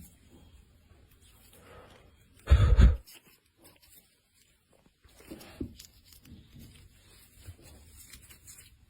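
Faint scraping and clicking from close handling, with one loud thump lasting about half a second about two and a half seconds in.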